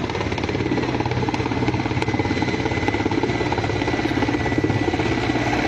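Military helicopter's rotor beating in a fast, steady pulse, with engine noise underneath.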